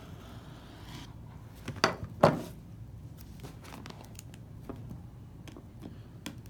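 Plastic shrink-wrap on a phone box being slit with a folding pocket knife, then crinkled and peeled off by hand with small scattered clicks. A couple of sharp knocks about two seconds in are the loudest sounds.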